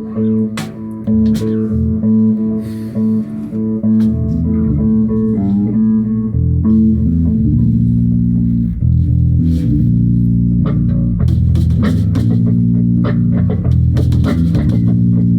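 Bass guitar and guitar playing together, a rock-style jam with held notes; about seven seconds in the low end gets fuller, and sharp percussive hits come in more often in the second half.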